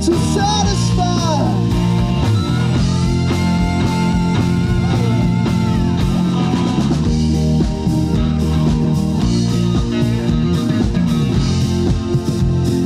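A rock band playing live, with electric guitar, bass guitar, drum kit and keyboards. A singer's voice wavers over it about a second in, and long held notes follow in the middle.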